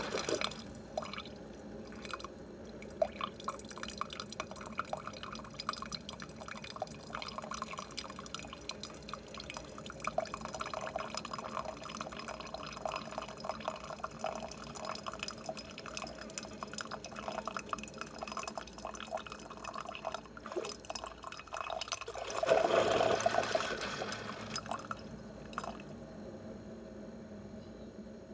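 Instant Solo single-serve coffee maker dispensing into a cup: a steady patter of dripping and trickling liquid, with a louder burst of hissing and gurgling about 22 seconds in.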